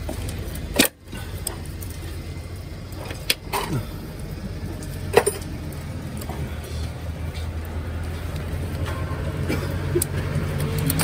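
Sharp clicks and knocks of plastic high-voltage cable connectors and clips being worked loose by gloved hands under a Tesla Model 3, a handful of them, the loudest about a second in and about five seconds in. A steady low hum runs underneath.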